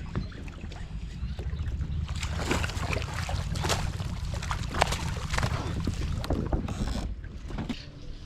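Wind rumbling on the microphone on a kayak on open water. Through the middle of the stretch comes a busy run of splashes and knocks, which quiets near the end.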